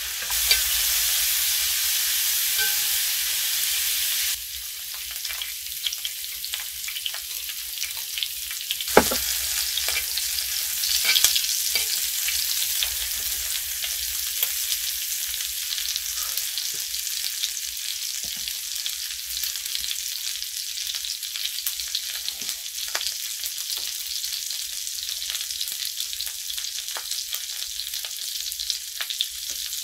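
Thinly sliced pork belly sizzling in a cast-iron pan, louder for the first four seconds or so and then settling to a steadier fry. Occasional sharp clicks come as it is stirred with chopsticks.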